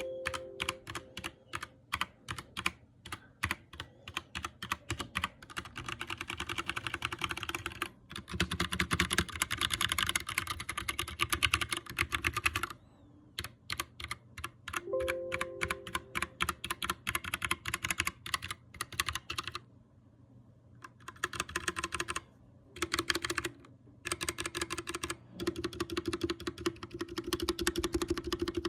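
Computer keyboard being typed on, with a stream of key clicks. It starts at a few keystrokes a second, then breaks into a fast continuous run of typing, and later comes in bursts with short pauses between them.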